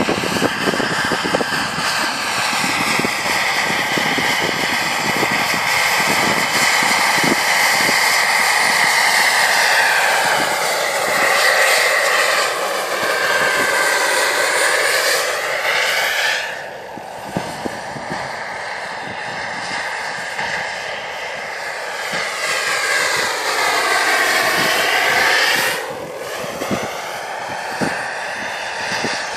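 Turbine-powered model helicopter with a JetCat PHT3 shaft turbine in flight: a steady high turbine whine mixed with rotor noise. The sound swells and sweeps in pitch as the helicopter passes close, twice, and drops off sharply after each pass, about halfway through and near the end.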